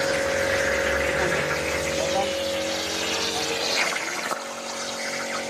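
CNC plasma cutter cutting a pattern into steel plate: the arc gives a steady hiss with a steady whine under it. The hiss eases about four seconds in.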